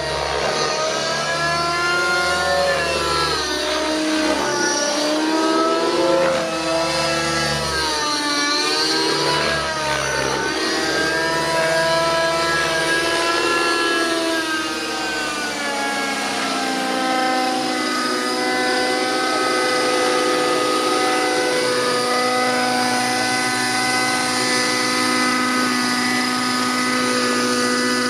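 O.S. MAX-55HZ two-stroke glow engine and rotor of a JR Vibe 50 RC helicopter running at flying speed. Through the first half the pitch swings up and down as it manoeuvres; then it holds steady as the helicopter settles into a low hover.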